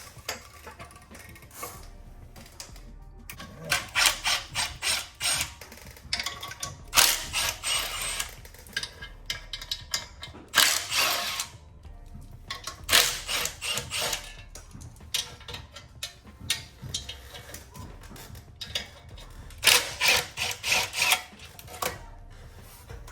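Hand ratchet wrench clicking in short bursts of rapid clicks, about six times, as bolts are worked.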